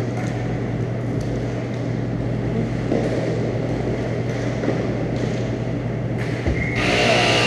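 Steady low hum and background noise of an indoor hockey rink during play, with no words. Near the end a louder rush of noise comes in.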